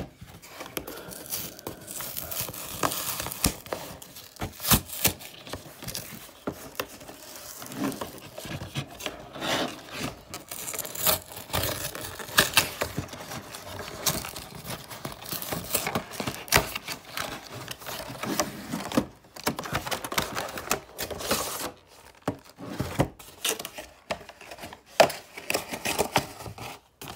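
Cardboard and clear plastic packaging of a trading card collection box being opened by hand: irregular crinkling, tearing and rustling with many sharp crackles.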